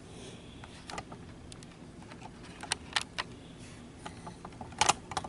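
Handling noise: a scattering of small, sharp clicks and taps as a plastic button and knitting are handled, a few close together in the middle and the loudest just before the end.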